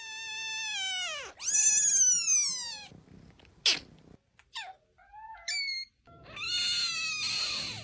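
Kittens meowing in high, thin mews. Two long drawn-out meows fall in pitch, followed by a few short mews and another long meow near the end.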